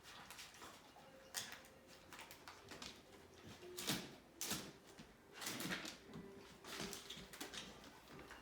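A dog nosing, pawing and chewing at cardboard food-puzzle boxes and paper: irregular rustles, scrapes and crinkles, with louder tearing or scraping bursts near the middle.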